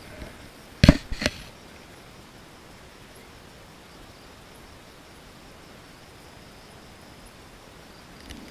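Two sharp knocks close together about a second in, followed by a steady faint hiss.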